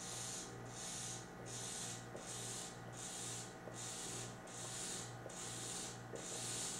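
Pizza being chewed close to the microphone, a little under two chews a second, each chew a soft hissy mouth sound.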